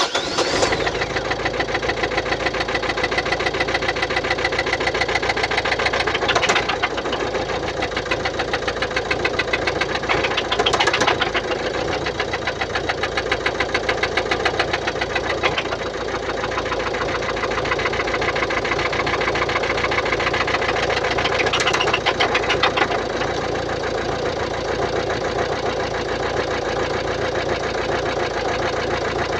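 Mercedes-Benz Vito 639's 1.6-litre OM622 diesel idling just after start-up with a steady rhythmic knocking clatter, suspected to come from defective hydraulic lifters.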